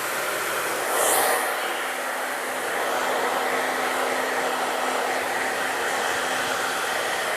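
Hair dryer blowing steadily, drying a freshly bathed hen's feathers; it swells louder briefly about a second in.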